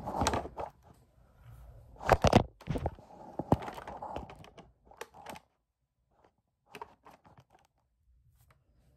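Rustling and scraping handling noise with several sharp clicks from a hand working right against the phone's microphone. It dies away after about five seconds into near quiet with a few faint ticks.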